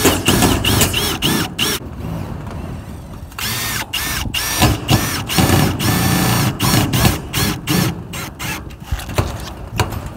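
Milwaukee M18 cordless drill driving self-drilling roofing screws through metal roofing sheet: quick repeated trigger bursts of motor whine rising and falling with rapid clicking, a pause about two seconds in, then more bursts.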